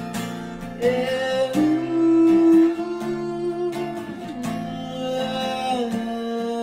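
Acoustic guitar strummed steadily under a man singing long held notes that slide from one pitch to the next.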